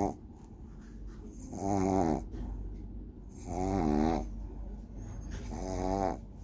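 A sleeping pet snoring loudly: three long, pitched snores about two seconds apart, each with a wavering tone, and quieter breathing between them.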